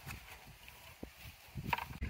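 Low wind rumble on the microphone, with a sharp click about a second in and a few light knocks near the end.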